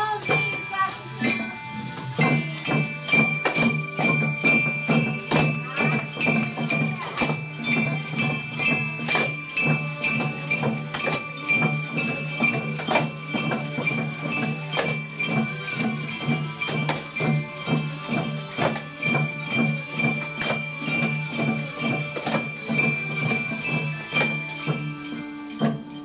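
A class of children playing a rhythmic piece together on boomwhackers, small xylophones and tambourines, with tambourine jingles prominent over an even beat of strikes. The playing stops near the end.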